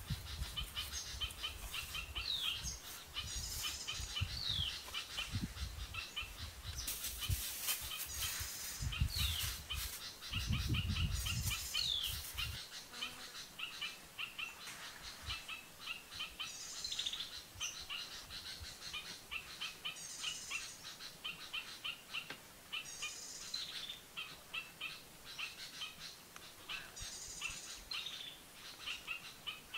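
Wild birds calling in forest: short chirps and falling whistles, with one high call repeating about every three seconds. Low wind rumble on the microphone through the first twelve seconds or so, then it drops away.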